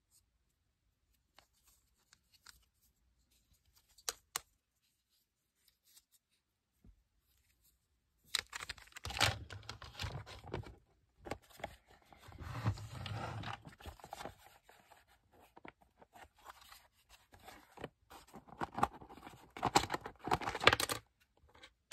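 Hard plastic Lego parts handled and pried apart: a couple of sharp clicks about four seconds in, then from about eight seconds a long stretch of scraping, rubbing and knocking of plastic on plastic, loudest near the end.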